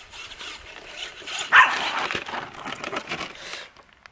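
A dog barking and growling in a scuffle, loudest about a second and a half in, then stopping suddenly near the end.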